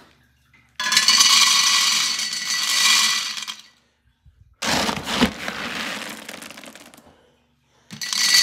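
Dry dog kibble poured from a plastic scoop into a stainless steel bowl, the pellets rattling and pinging on the ringing metal, twice: about a second in and again near the end. In between, a rougher rattle of kibble being scooped, with a few knocks.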